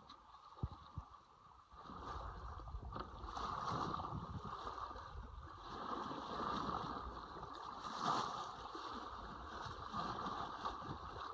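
Sea water rushing and splashing along the hull of a small sailboat under sail, surging louder and easing off every few seconds.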